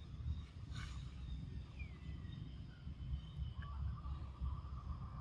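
Quiet outdoor background: a steady low rumble with faint, thin high chirps, and a faint held tone that comes in about three and a half seconds in.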